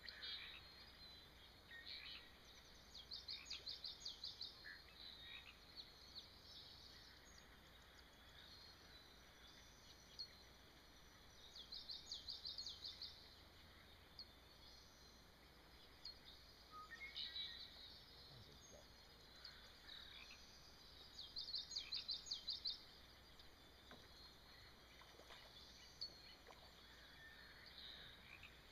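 Faint birdsong: a high, rapid trill of about seven notes a second, lasting a second or so, sung four times at intervals of several seconds, with scattered short chirps between.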